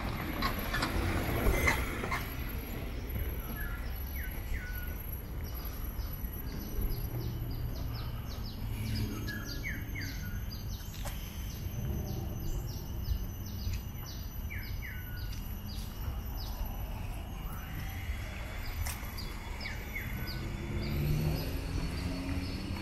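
Birds calling in tropical park greenery: short chirps every few seconds and a fast run of high, repeated chirps through the middle, over a steady low background rumble. A small utility cart passes close by near the start, and near the end a low motor hum rises in pitch.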